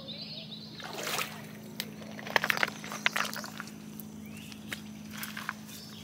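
Water sloshing and splashing in rocky shallows where carp are held on a line, with a cluster of sharp splashes about two to three seconds in. A steady low hum runs underneath.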